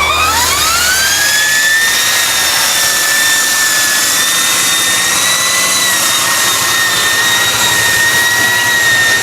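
Electric motorcycle's motor whining loudly, rising in pitch over the first couple of seconds as it speeds up, then holding a steady high whine.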